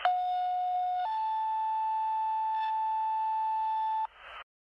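Two-tone sequential fire dispatch pager tones heard over a radio: one steady tone for about a second, then a slightly higher tone held for about three seconds. It cuts off abruptly, followed by a brief burst of radio hiss.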